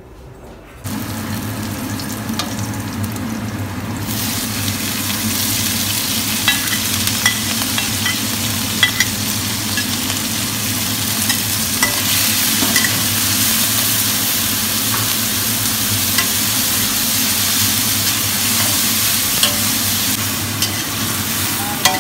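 Sliced chillies sizzling in a hot stainless-steel wok as they are stir-fried, with the spatula ticking and scraping against the metal now and then. The sizzle starts suddenly about a second in and grows louder around four seconds in, over a steady low hum.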